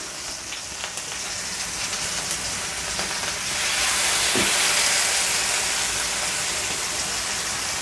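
Chicken shashlik skewers sizzling as they shallow-fry in a little oil in a pan, a steady hiss that swells for a couple of seconds around the middle.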